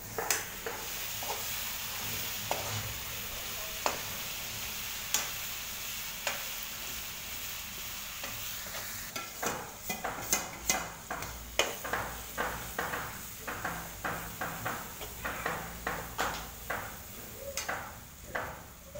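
Onions and spice powder sizzling in hot oil in a metal kadai. From about nine seconds in, a steel slotted spoon stirs and scrapes against the pan at about two strokes a second.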